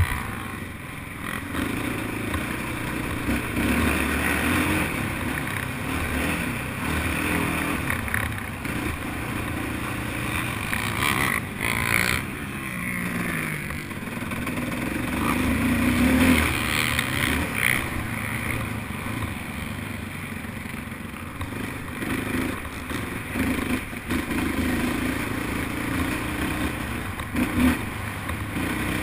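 Racing quad (ATV) engine noise, the revs rising and falling repeatedly with the throttle.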